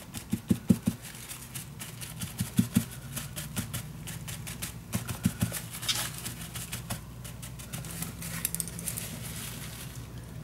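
Crumpled tissue dabbed again and again on wet watercolour paper, blotting the paint: an irregular run of soft taps and light crinkles, with a few louder knocks against the table, over a steady low hum.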